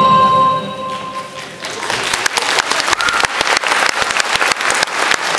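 The last held note of the dance music fades out in the first second or so, then an audience starts applauding about two seconds in, the clapping building to a steady round.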